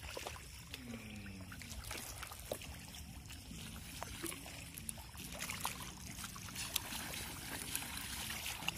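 Pond water trickling and lapping, with scattered small splashes.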